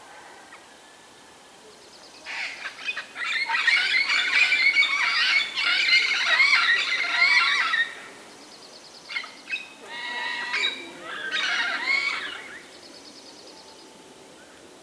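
A flock of nanday parakeets calling, many shrill screeching calls overlapping. They come in two bouts: from about two seconds in to about eight seconds, and again from about nine to twelve seconds.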